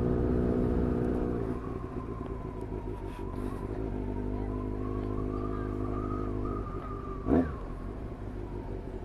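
Motorcycle engine running at an even cruising pace in town, its note fading and coming back as the throttle eases and opens, under steady wind and road noise on a helmet-mounted microphone. A short rising-and-falling chirp about seven seconds in.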